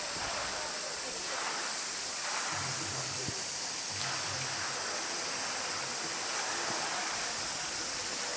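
Steady rush of running water splashing over the rock edge of a polar bear pool.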